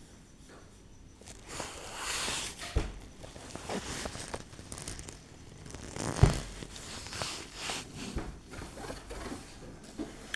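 Irregular rustling and scraping handling noises, with two louder thumps about three and six seconds in.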